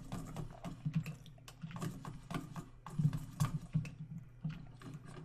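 Computer keyboard keys clicking irregularly, several presses a second, as keyboard shortcuts are pressed.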